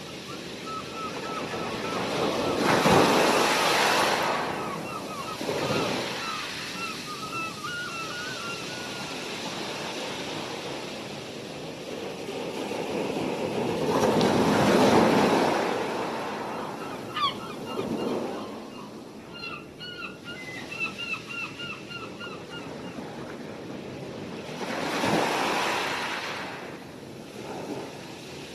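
Sea waves breaking on the shore, with three large swells about ten seconds apart, while gulls call in quick series of short cries above the surf.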